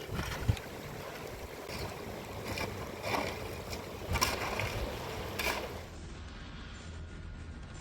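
Steady rush of rain and running floodwater, with a few sharper splashes about a second apart until about six seconds in, where the sound turns duller.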